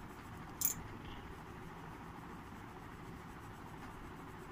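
Pen drawing lines on paper, a faint steady scratching, with one short sharp click a little over half a second in.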